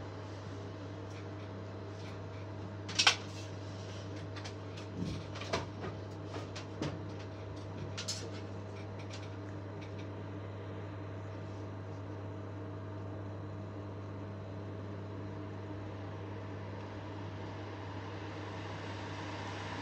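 Steady mechanical hum of a commercial chicken rotisserie grill running, with a few sharp knocks and clicks between about 3 and 8 seconds in, the loudest about 3 seconds in.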